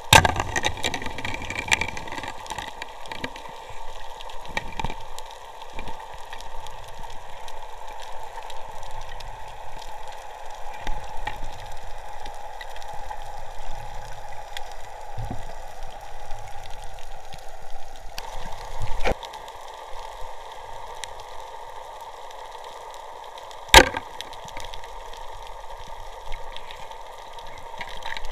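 Muffled underwater noise picked up by a camera in a waterproof housing during a night spearfishing dive, with scattered clicks and knocks. There is a loud knock right at the start, another about 19 s in, and a sharp crack about 24 s in.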